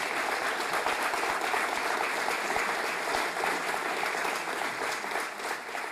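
Audience applauding, a dense, steady clapping that eases slightly near the end.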